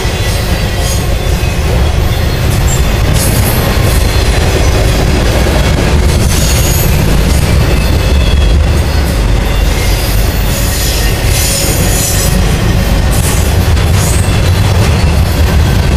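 Intermodal freight train of highway trailers on flatcars rolling past close by: a loud, steady rumble and clatter of steel wheels on rail, with brief high-pitched wheel squeals several times.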